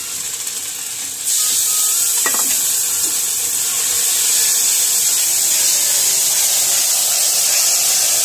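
Masala sizzling in hot oil in a kadhai, a loud steady hiss that jumps up suddenly about a second in, with a spatula clinking against the pan soon after.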